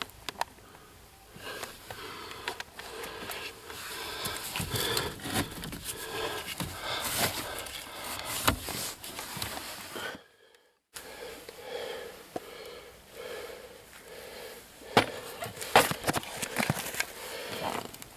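Clicks, knocks and rustling of hands working a heater core free of its dashboard housing, with a few sharper knocks near the end. The sound drops out completely for about a second in the middle.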